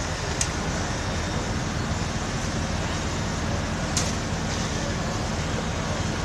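Fire apparatus diesel engines running steadily at the fire scene, a low hum under a broad hiss, with two sharp clicks, one about half a second in and one about four seconds in.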